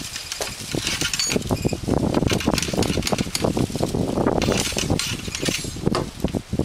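Ramrod being worked up and down the barrel of a black-powder rifled musket, with repeated clicks and scrapes as the ball is rammed home.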